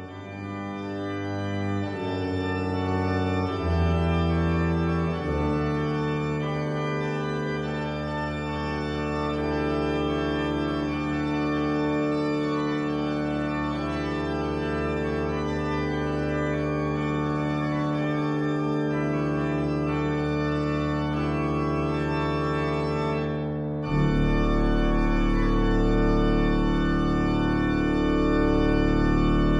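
Organ playing slow, long-held chords with no voice. About 24 seconds in, it moves to a new chord with a deep bass note added and grows louder.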